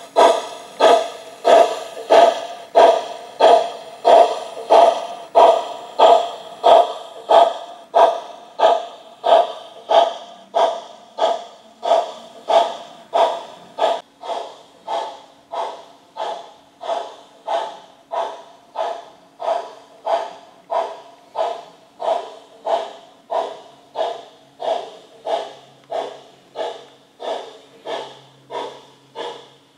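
Sound-equipped model steam locomotive running with a steady, even steam chuff, about three chuffs every two seconds. The chuffs drop in loudness about halfway, and a faint steady hum sits under them from then on.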